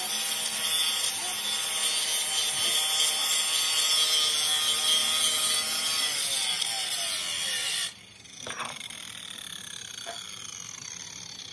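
Angle grinder grinding down the weld bead on a steel rear axle housing, a steady loud grinding hiss of disc on metal. The disc comes off the metal about eight seconds in, and the grinder's whine falls away as it spins down, with a couple of light knocks.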